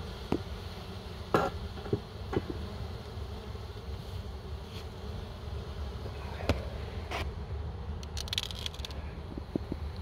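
Honeybees buzzing steadily around an opened hive, with a few sharp knocks, the loudest about a second and a half in, and a brief hiss about eight seconds in.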